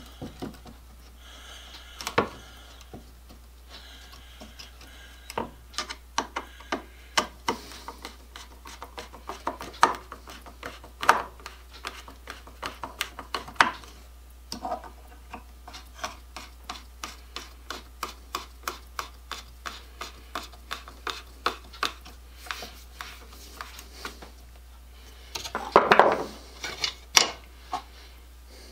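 Small metallic clicks and light scraping as a plane blade is set and tightened in a honing guide with a screwdriver, about one or two clicks a second. A louder rattle of tools near the end.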